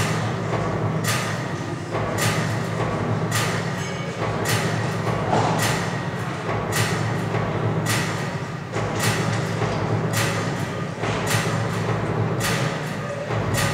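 Improvised electronic music played on keyboards from sampled found sounds of a building: a sharp percussive hit about once a second, with lighter hits between, over a steady low drone.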